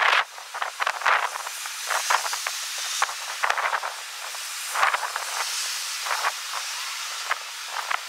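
Strong wind gusting on the microphone, sped up six times. It comes across as a rushing hiss with quick crackles and short swells.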